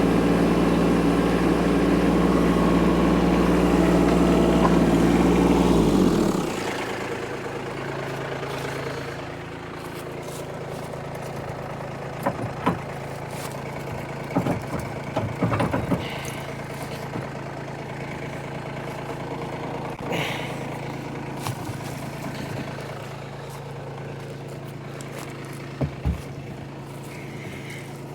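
Kubota tractor's diesel engine running at higher throttle, then dropping to a steady idle about six seconds in. A few sharp knocks sound over the idle.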